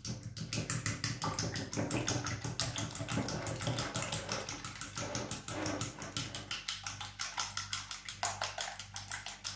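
A fork beating eggs in a ceramic plate, its tines clicking against the plate in a quick, even rhythm of about six strokes a second.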